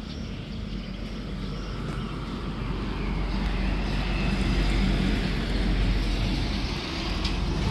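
A passing vehicle: a low engine and road rumble that builds to its loudest about five seconds in, then eases off.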